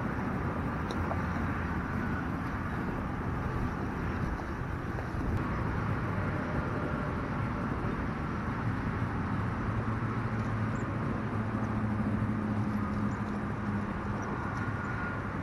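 Steady rush of distant freeway traffic, with a low engine hum growing stronger in the second half.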